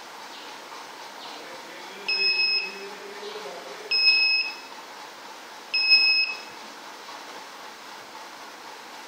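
Piezo buzzer on a homemade infrared visitor-counter circuit beeping three times, each beep steady, high-pitched and about half a second long, at an even spacing of a little under two seconds. The beeps sound as a hand is passed through the infrared sensor gate and the visitor count changes.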